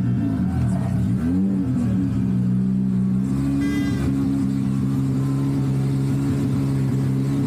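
Car engine rising and falling in pitch twice near the start, then running at a steady pitch. A short high-pitched tone sounds over it a little after three and a half seconds.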